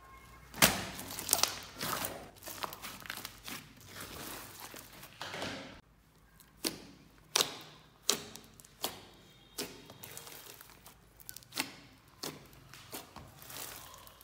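Glossy glitter slime being squished, pressed and stretched by hand, giving irregular wet clicks and pops.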